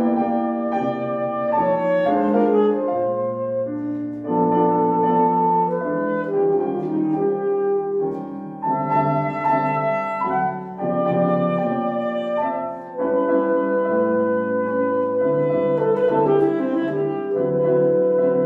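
Alto saxophone playing a classical melody of held notes in phrases, accompanied by a Yamaha grand piano.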